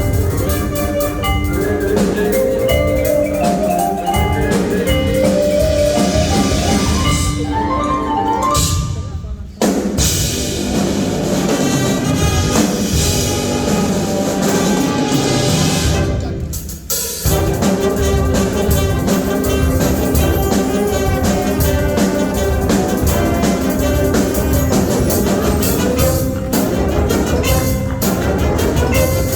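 Marching band playing its show music, with drums and keyboard percussion in the mix. The mallet runs climb upward around seven to nine seconds in. The music cuts off sharply twice, about nine and a half and sixteen and a half seconds in, before the full ensemble comes back in.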